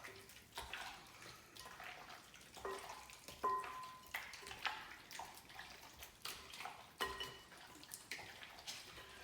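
Hands mixing raw chicken pieces with egg and seasonings in a bowl: faint, irregular wet squelches and slaps.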